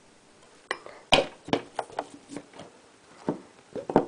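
Metal teaspoon clinking against glass, the jar and a small glass bowl, as raw rice powder is scooped and tipped into the bowl: a string of about eight sharp, irregular taps.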